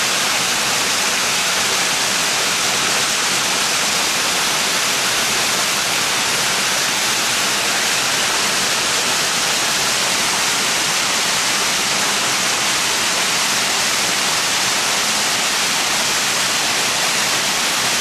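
Waterfall pouring over rock ledges into a pool: a steady rush of water with no breaks.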